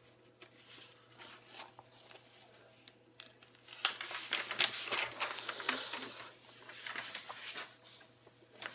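Sheets of paper rustling and crinkling as they are handled, with scattered light clicks; the rustling is loudest and busiest in the middle of the stretch.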